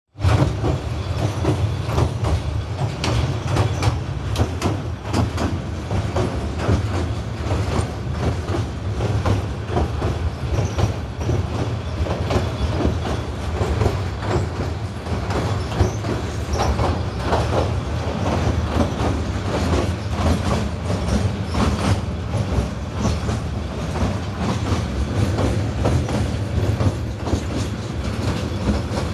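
Train running across a steel truss bridge, heard from an open carriage window: a steady low rumble with a dense, irregular clatter of wheels and carriages on the rails.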